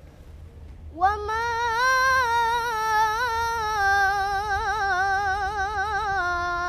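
A girl's voice reciting the Quran in a melodic, sung tajweed style. After a brief pause she begins one long held phrase with wavering ornaments that rises, then settles and falls slowly.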